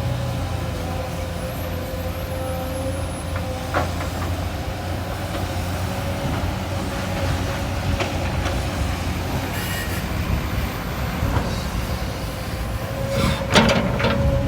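Large hydraulic excavator's diesel engine running under load with a steady high whine over the low rumble, with a sharp knock about 4 seconds in and a louder clatter near the end.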